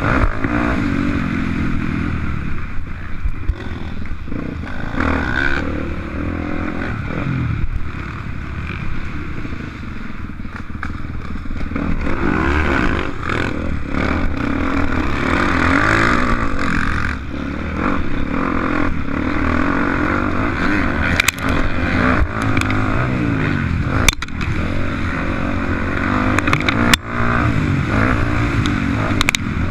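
Motocross bike engine running hard, its pitch rising and falling again and again as it revs up and shifts. Several sharp knocks come through in the second half.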